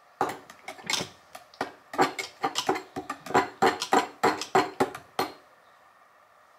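A utensil clinking and knocking against a quart jar while thick homemade tomato sauce is scooped out: irregular sharp clinks, about three or four a second, that stop about five seconds in.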